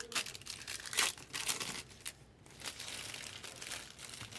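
Plastic trading-card pack wrappers crinkling and rustling as they are handled. The sound comes in a few short bursts and then a longer stretch of crinkling near the end.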